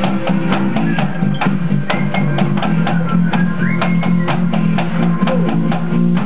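Music with a steady, fast drum beat over sustained low instrument notes, without singing; a short rising tone comes in about halfway through.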